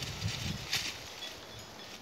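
A dog digging and rooting in dry leaf litter under a bush: a few short scratching, rustling strokes in the first second, the loudest about three-quarters of a second in, then fainter.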